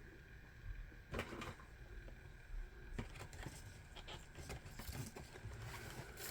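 Faint, scattered clicks and light taps from a small diecast model car being handled, over quiet room tone.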